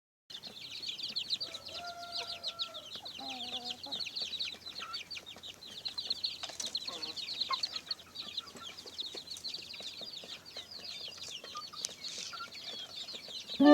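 A crowd of kampung chicks peeping continuously, many high, quick downward-sliding peeps overlapping, with a few lower, longer clucks from a grown chicken in the first few seconds.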